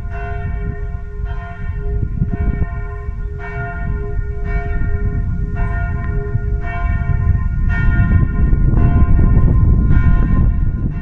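Church bells of a basilica's towers ringing, a strike about once a second over a steady hum from the bells. A heavy low rumble runs underneath and grows louder toward the end.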